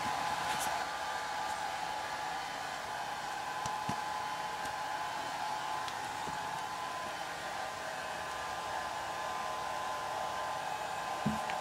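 Steady whirring hiss of an air-moving appliance running without change, with a few faint clicks and one short soft thump near the end.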